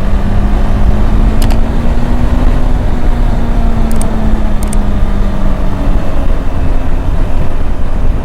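KTM 390 Adventure's single-cylinder engine running at a steady road speed, with wind rushing over the microphone. The engine note drifts slightly up and back down, and there are a few brief clicks.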